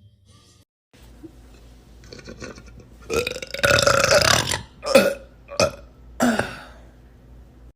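A girl burping: one long, loud burp a little after three seconds in, then three short burps about two-thirds of a second apart.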